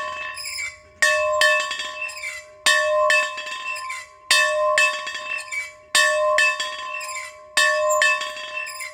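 A single bell being rung over and over, its strokes coming in pairs about every second and a half, each stroke ringing on into the next.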